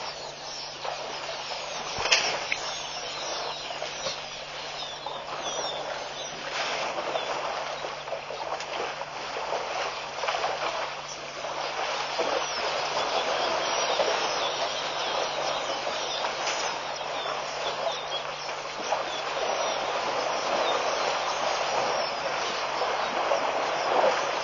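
Outdoor waterhole ambience: a steady noisy wash with bird calls and elephants sloshing and splashing through shallow water. It grows somewhat louder about halfway through as more of the herd wades in. A faint low hum runs beneath.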